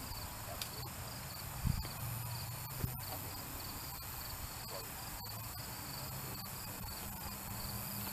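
Crickets chirping steadily, short high chirps about twice a second, over a low outdoor rumble, with one dull thump a couple of seconds in.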